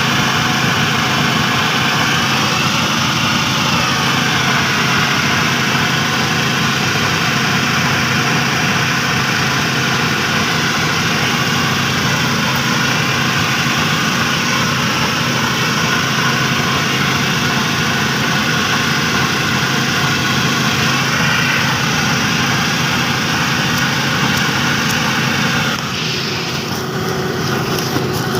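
Engine-driven rice threshing machine running steadily, its motor and threshing drum making a constant mechanical din that drops a little in level near the end.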